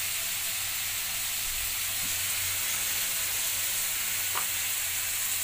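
Food sizzling steadily as it stir-fries in a metal wok, with a low steady hum underneath.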